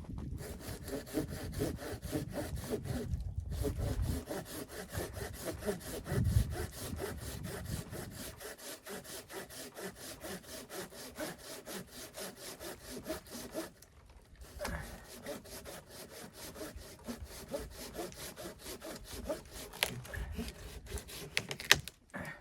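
Hand saw cutting through wood in rapid, even back-and-forth strokes, stopping briefly twice.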